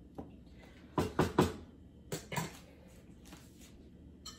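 Wooden spoon stirring chicken in a nonstick frying pan and knocking against the pan: three quick knocks about a second in and two more around two seconds, with fainter scrapes between.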